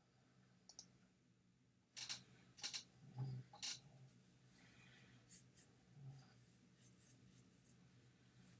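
Faint, scattered clicks and scratchy strokes, with two brief low hums in between.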